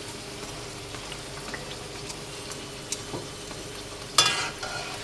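Oil sizzling steadily as a stuffed paratha shallow-fries in a wok, with a few light clicks of a metal spatula. A brief, loud scrape about four seconds in.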